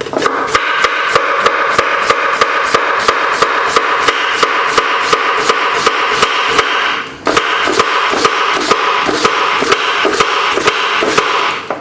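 Kitchen knife chopping vegetables on a cutting board, an even rhythm of about four quick strokes a second, with a brief break about seven seconds in.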